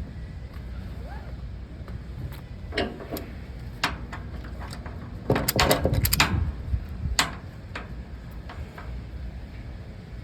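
Scattered sharp clicks and knocks, with a burst of rapid rattling clatter about five to six and a half seconds in, over a steady low rumble.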